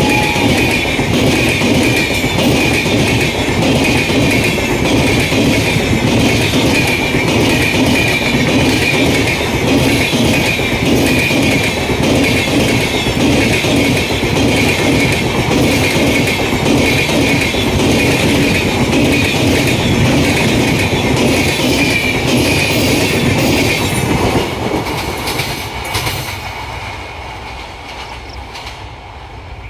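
Passenger train's LHB coaches running past at speed, wheels clicking rhythmically over rail joints, with a steady high-pitched ring from the wheels on the rails. The noise fades away over the last five seconds or so as the train recedes.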